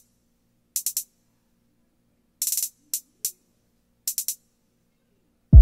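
Programmed hip-hop hi-hat rolls played solo: short bursts of rapid high ticks with silent gaps between, the roll speed set by a note repeater under the mod wheel. Near the end the full beat comes in loudly.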